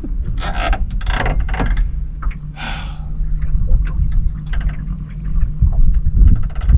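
Water sloshing and splashing around a small fishing boat over a steady low rumble, with a few short rushing splashes in the first seconds. From about one and a half seconds to near the end, the low steady hum of an electric trolling motor runs underneath.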